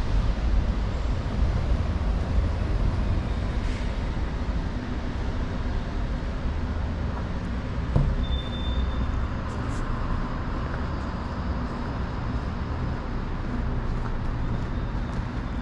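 City street traffic: a steady low rumble of passing cars and buses. About eight seconds in there is a single sharp knock, followed by a brief high squeak.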